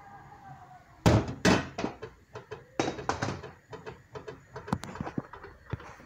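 Aluminium cookware knocking and clattering as the couscous basket is set back onto the couscoussier's steaming pot: a heavy thunk about a second in, then a run of lighter knocks and clicks.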